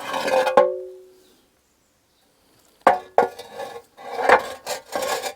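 Old clay roof tiles being shifted in a pile. One knock at the start rings briefly, and from about three seconds in comes a run of knocks and clatter as tiles hit and scrape each other.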